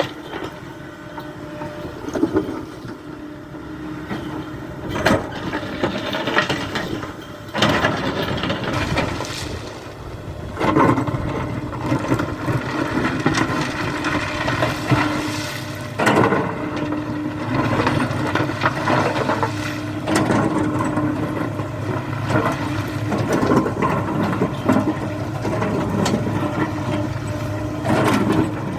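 Kobelco SK75 mini excavator's diesel engine running steadily at working revs, with sharp knocks now and then as it works the earth fill. The engine grows louder about ten seconds in.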